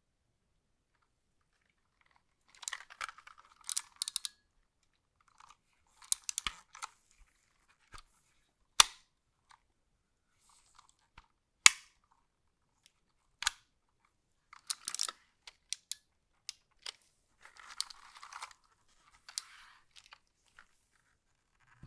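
Keyboard packaging being handled: bursts of crinkling and rustling with scattered sharp knocks, the loudest about nine and twelve seconds in.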